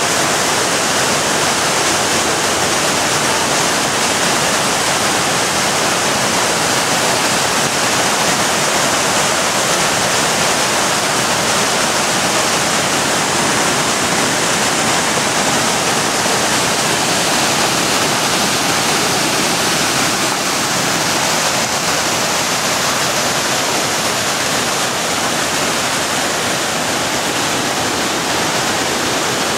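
The Roaring River cascading over boulders at the Alluvial Fan waterfall: a loud, steady rush of white water.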